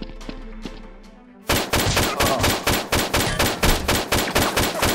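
Rapid automatic gunfire, about seven shots a second, starting abruptly about one and a half seconds in after a short stretch of faint background music.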